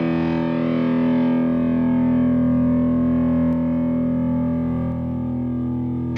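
Distorted electric guitar chord held and ringing out through an effects rig, one sustained chord with no new strums, dipping slightly in level about five seconds in as the song ends.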